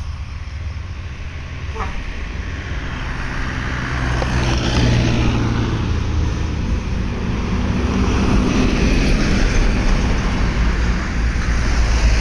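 A Toyota Calya's engine running as the car backs down the slope toward the microphone, unable to make the climb, mixed with passing road traffic. The sound grows louder from about four seconds in.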